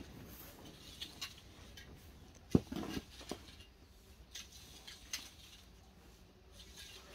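Garden rake dragged through a bed of sand: faint, irregular scraping and scratching, with one louder knock about two and a half seconds in.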